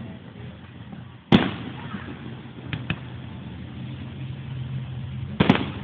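Aerial fireworks shells bursting. There is a loud boom just over a second in, two small cracks near three seconds, and another loud double boom near the end.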